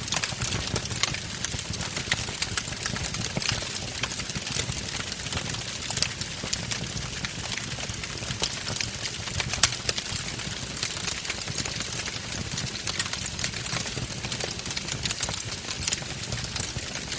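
Wood fire burning in a fireplace: frequent sharp crackles and pops over a low steady roar, with one louder pop about ten seconds in.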